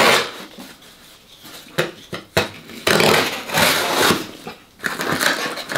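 Kitchen knife cutting through packing tape and cardboard on a shipping box: a few short sharp scrapes, then a longer rasping stretch about three seconds in. The knife is poorly suited to the job, and the cutting is slow and awkward.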